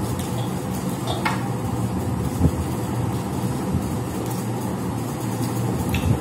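Steady low mechanical hum and rumble, with a few light clicks and taps of hands eating from metal plates.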